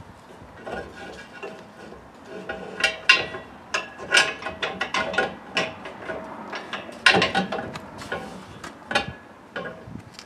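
The steel bars and fittings of a hitch-mounted truck bed extension being handled: irregular metal-on-metal clanks, clicks and rattles with a short ringing after some of them. The loudest knocks come about three and seven seconds in.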